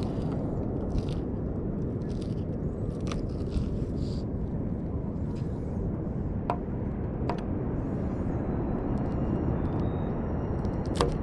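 Knife cutting through a small fish's scales and skin for bait, with a few sharp clicks of the blade, over a steady outdoor rumble.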